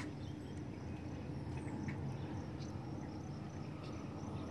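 Quiet lakeside outdoor ambience: a steady low rumble with a few faint high chirps and light ticks.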